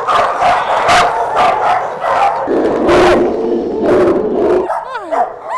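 Several dogs barking in quick succession, with a steadier held sound for about two seconds in the middle and high, falling yelps near the end.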